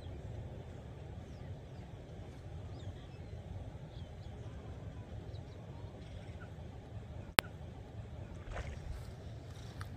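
Outdoor ambience: a steady low rumble with faint, scattered high chirps, and one sharp click about seven seconds in.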